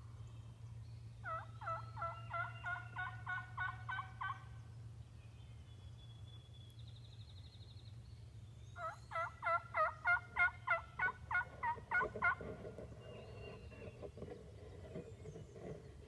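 Two series of hen turkey yelps, each about ten sharp notes at roughly three a second, the second series louder, made to call in gobblers.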